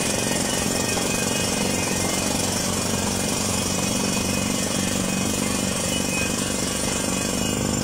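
Down-the-hole air hammer of a truck-mounted water well drilling rig running on compressed air: steady rapid hammering with a rush of air blowing rock dust out of the borehole.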